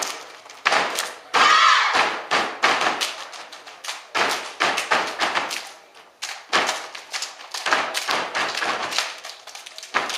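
Step team stomping and clapping on a stage floor: a fast, uneven run of sharp stomps and hand claps, with echo.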